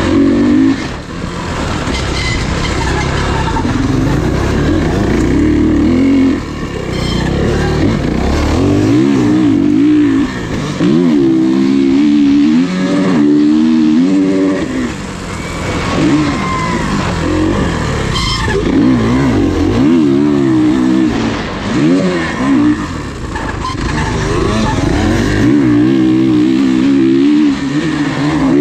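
Off-road racing engines revving hard, their pitch rising and falling again and again as riders go through the gears. The sound swells and fades as machines pass.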